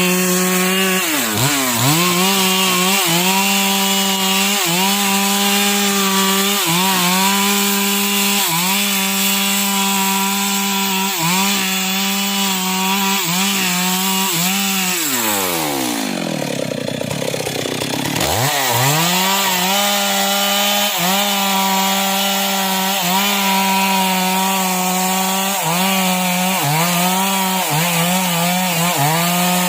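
Stihl two-stroke chainsaw cutting a small tree at high revs. Its note sags and recovers every second or so. About halfway through, the revs fall away almost to idle for a couple of seconds, then climb back to full speed.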